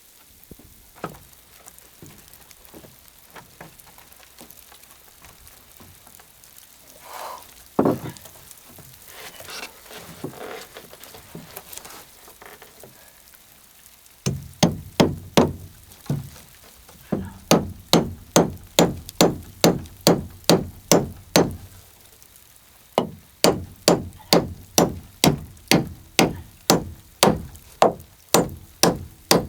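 Runs of rapid, evenly spaced knocking blows, like a hammer striking wood, about two to three a second with short pauses between runs, starting about halfway through. Before that there are only faint scattered ticks and a light crackle.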